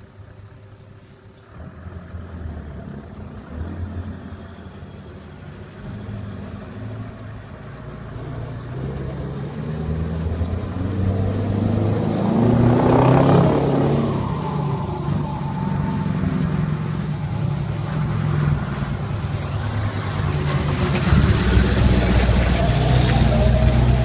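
Scania V8 diesel truck engine running. It grows steadily louder through the first half, is loudest about halfway through with its pitch sliding, and swells again to a deep, loud note near the end.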